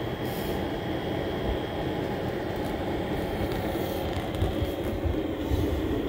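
Cooling fans of a running desktop PC, led by the CoolMax 400 W power supply's fan: a steady, very loud rush of air with a thin high whine held throughout.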